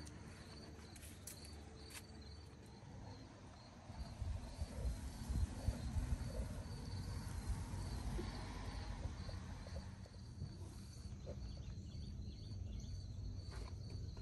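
Insects chirping in a steady, even pulse. A low rumble on the microphone rises from about four seconds in.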